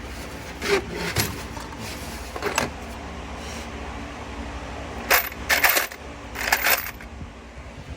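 Loose metal bolts and hardware clinking and rattling as they are sorted through: a few separate clinks, then two quick flurries of clinking past the middle.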